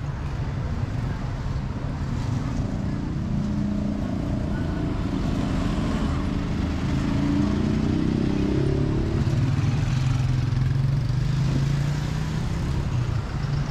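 Road traffic at close range: car engines running as vehicles pass slowly, with an engine hum that rises and falls in pitch through the middle and then holds steady and low for a few seconds.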